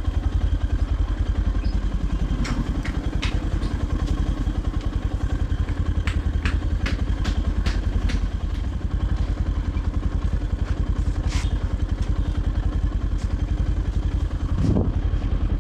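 Motorcycle engine running steadily under way, with a few sharp clicks and rattles through it and a brief rise in pitch near the end.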